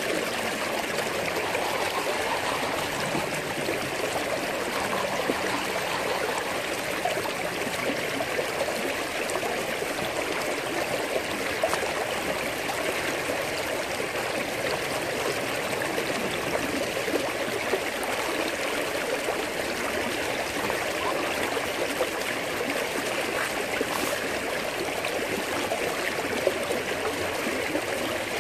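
Creek water rushing steadily through a metal gold-panning sluice box set in the stream, an even, unbroken wash.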